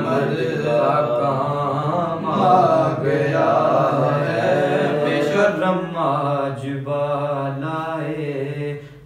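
Unaccompanied male voice reciting a naat, the devotional Urdu praise poem chanted in long melodic lines without instruments.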